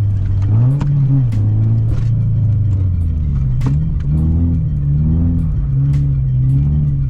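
Subaru WRX engine revving up and down repeatedly under load, with sharp clicks now and then. The owner bills its sound as piston slap.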